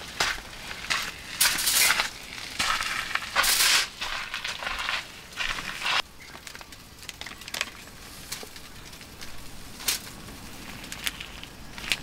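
Aluminium foil and plastic food packaging crinkling and rustling in short bursts for about the first six seconds, then only a few faint clicks.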